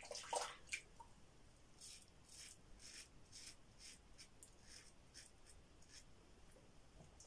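Faint short scrapes of a Yuma closed-comb double-edge safety razor with a Derby blade cutting lathered stubble around the mouth, about two strokes a second.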